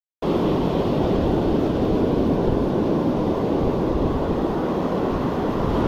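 Wind buffeting the microphone with ocean surf beneath, a steady rumbling noise that cuts in suddenly a moment in.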